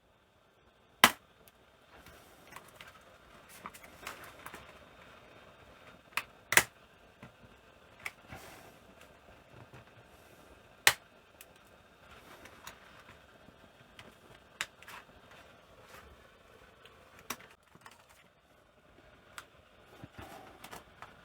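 Plastic fixings holding a laptop keyboard into its top case snapping as the keyboard is worked free: sharp cracks about a second in, around six and a half seconds and near eleven seconds, with lighter clicks and ticks between.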